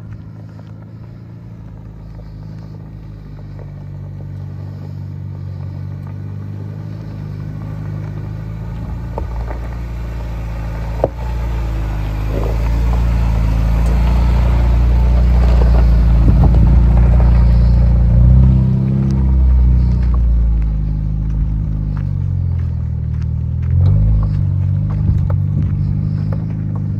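Ford Bronco's engine and exhaust running as it drives a dirt trail, steadily growing louder over the first half, with the engine note changing pitch a couple of times as it revs. There is one sharp knock about eleven seconds in.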